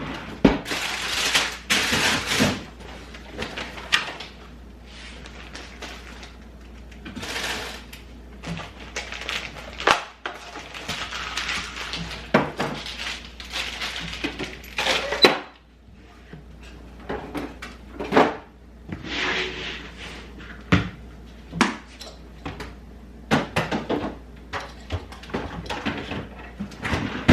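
Kitchen handling sounds from packing lunchboxes: scattered clicks, knocks and light clatter of containers and utensils, with several stretches of rustling from wrappers and packaging.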